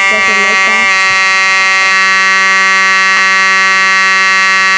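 Fire alarm horn sounding one steady, unbroken tone.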